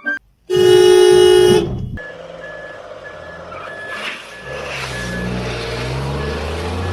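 A loud horn blast lasting about a second, then a heavy vehicle's reversing alarm beeping about twice a second while its engine runs and picks up from about four seconds in.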